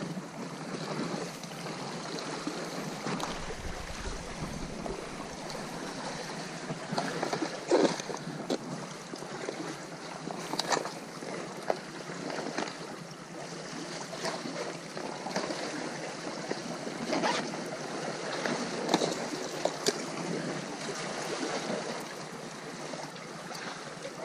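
Sea surf washing steadily with wind, a deeper gust of rumble on the microphone about four seconds in, and scattered short sharp clicks and knocks.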